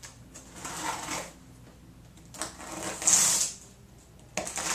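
Box cutter blade dragging through packing tape and cardboard on a shipping box, in a few rasping strokes, the loudest a sharp scrape about three seconds in. The blade is dull.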